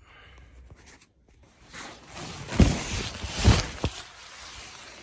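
Scratchy rustling of tent fabric, then from about two seconds in strong wind gusts buffeting the microphone, with a few heavy thumps.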